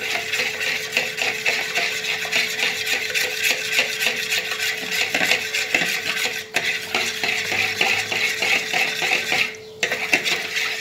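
A small metal whisk beats rapidly against the inside of a glass bowl, clinking and scraping as yeast is dissolved in warm water. The strokes stop briefly twice, about six and a half seconds in and near the end.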